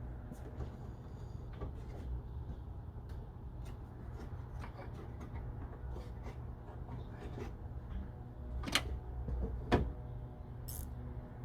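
Light clicks and knocks of metal tools and parts being handled during car repair work, with two sharper clicks near the end, over a steady low hum.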